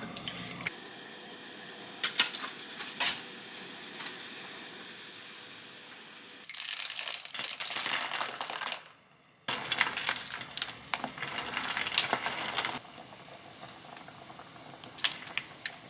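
Food sizzling and frying in a pan, a steady hiss with scattered sharp clicks from a cooking utensil. It breaks off briefly about nine seconds in.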